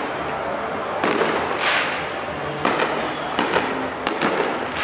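Fireworks display going off: several sharp bangs about a second apart, with a hissing rush between them.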